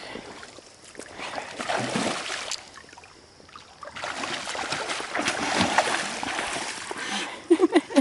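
A hooked king salmon splashing and thrashing at the river surface while it is played on a rod, with irregular splashes that grow heavier in the second half.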